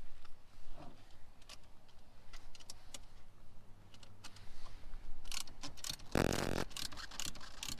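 Wrench loosening an X-chock tire stabilizer between a travel trailer's tandem wheels: scattered metal clicks and clinks. About six seconds in comes a half-second run of rapid clicking, the loudest sound.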